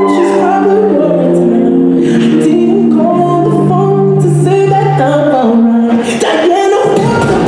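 Recorded pop song with a singing voice, played loud for a stage dance routine; slow, with long held notes.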